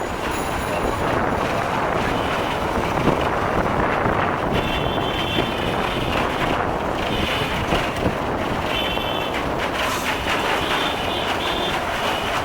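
Wind rushing over the microphone on a moving motorbike, with engine and road noise. Brief high steady tones sound several times.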